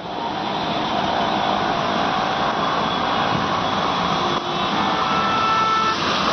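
Traffic moving through a flooded road in heavy rain: a steady rush of rain and water with vehicle engines running underneath.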